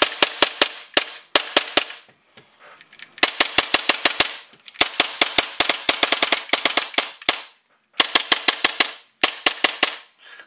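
Airsoft gas blowback Glock-style pistol, fed by HPA at 100 PSI, firing quick strings of sharp shots, about eight a second. There are about six bursts with short pauses between them.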